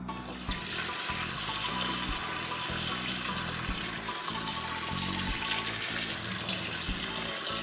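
Water pouring in a steady stream into a glass bowl of long beans, over background music with a steady beat.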